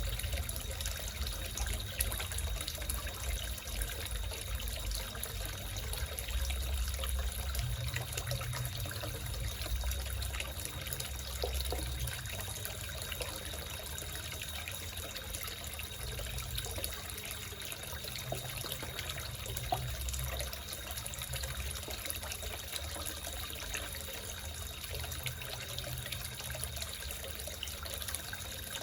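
Water trickling steadily into a small koi pond.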